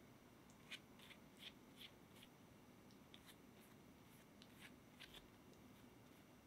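Faint soft ticks and dabs of a silicone pastry brush stroking egg wash onto proofed bread dough, about three light strokes a second in two short runs.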